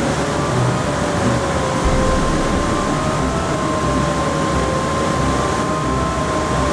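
A motor running steadily under a continuous rushing noise, its hum wavering slightly in pitch.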